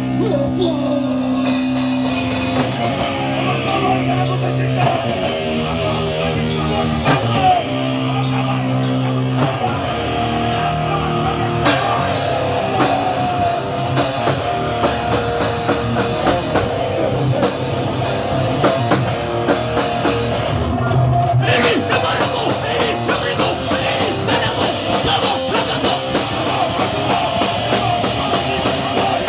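Hardcore punk band playing live at full volume, with a loud, fast drum kit driving the song.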